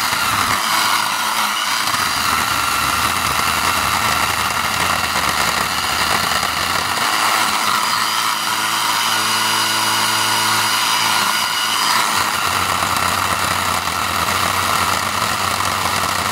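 Craftsman V20 10-inch battery-powered chainsaw cutting into a hardwood stump: the motor runs steadily under load with a high whine while the chain rasps through the wood.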